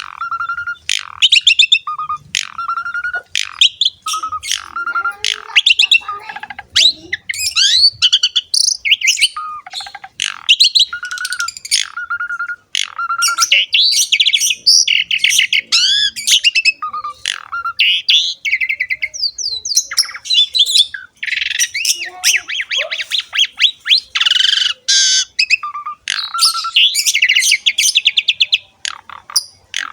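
Asian pied starling singing without pause: a fast, varied stream of whistles, chatters and harsh squawky notes. A short clear whistle at the same pitch recurs between phrases about once a second.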